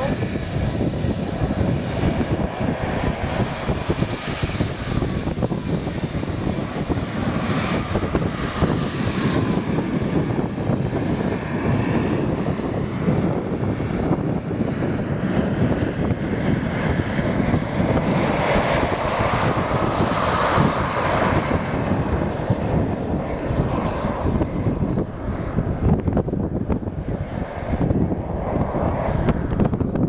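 Small model turbojet engine of a radio-control jet running on the ground, with a loud rushing exhaust and a thin, very high whine that rises and falls again and again as the throttle is worked while it taxis.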